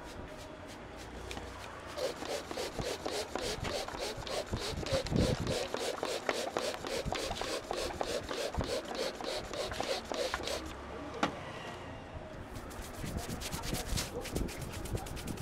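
Hands rubbing vigorously through the hair and over the scalp in a head massage, a fast, even rhythm of strokes that starts about two seconds in, eases off around ten seconds, and picks up again near the end.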